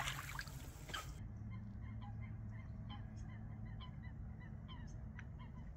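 Water settling just after a fish is released with a splash, then many short honking calls from geese, faint and repeated throughout.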